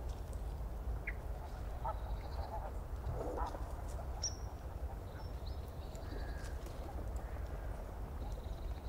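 Background ambience: a steady low hum with a few faint, short bird calls scattered through it.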